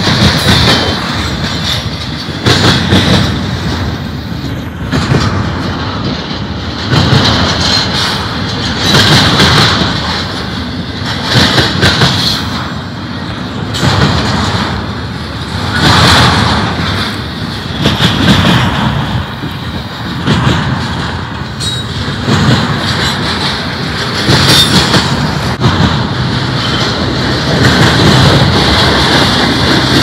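Double-stack intermodal train's well cars rolling past close by: steel wheels clattering over the rail in a loud clickety-clack that swells and fades every two to three seconds.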